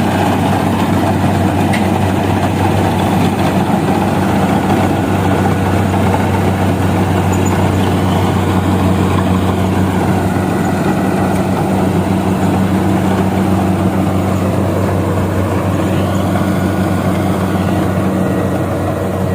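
Diesel engine of a rice combine harvester running steadily, a continuous low hum with no change in speed.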